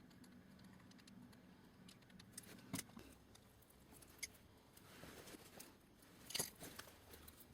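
Near silence with scattered faint clicks and taps from handling a plastic EC3 battery connector, with three brief louder ticks spread through it.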